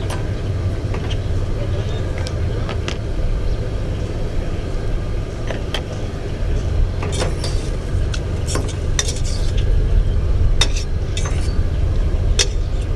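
Scattered light clinks and taps of a metal utensil against a stainless steel cooking pot and small dishes, more frequent in the second half, over a steady low rumble.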